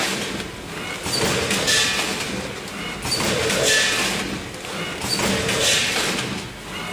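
Automatic vertical gusset-bag packing machine running through its bagging cycle, repeating about every two seconds: a knock from the sealing and cutting stroke, then a short rushing hiss.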